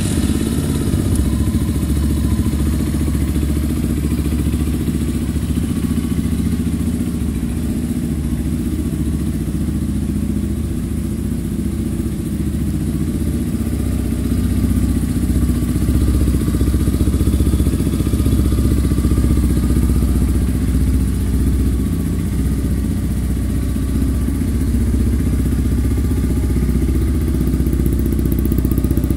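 KYMCO Quannon 150 Fi's single-cylinder fuel-injected engine idling steadily in neutral, with no revving.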